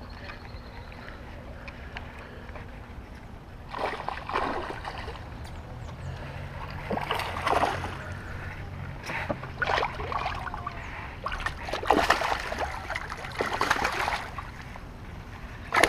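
Hooked smallmouth bass thrashing and splashing at the water's surface in several bursts, starting about four seconds in, over a steady background hiss.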